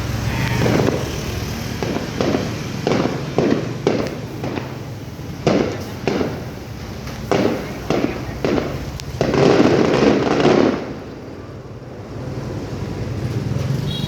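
Aerial fireworks display: a quick run of booming shell bursts with crackle, building to a dense cluster of bursts, then the bangs stop about eleven seconds in and only a low rumble remains.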